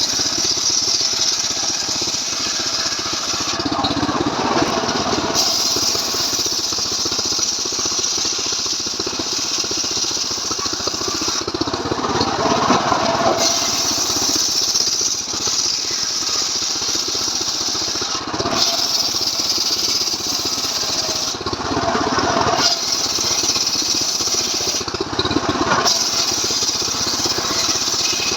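Stihl MS 381 two-stroke chainsaw running continuously under load while ripping a log lengthwise, its engine note shifting every few seconds as the load on the chain changes.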